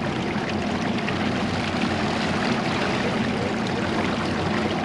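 Boat engine running steadily under way while trolling, with water and wind noise.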